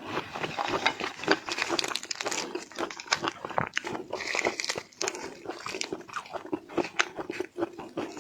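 Close-miked biting and chewing of shrimp: an irregular run of sharp crunches and crackles.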